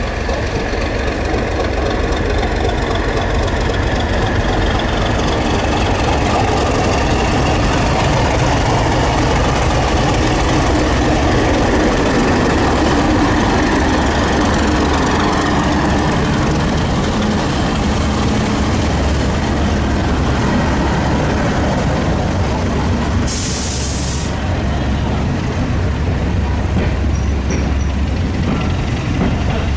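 Heritage diesel train engine running loud and steady, with a short burst of hiss about three quarters of the way through.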